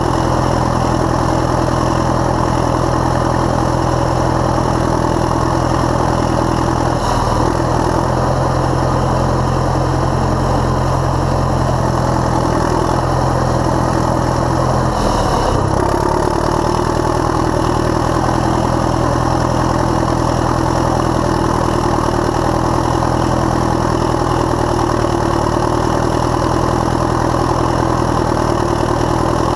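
1968 Caterpillar D7E bulldozer's diesel engine running steadily as the dozer works fill, heard close up from on the machine. Its note shifts briefly about a quarter of the way in and again about halfway.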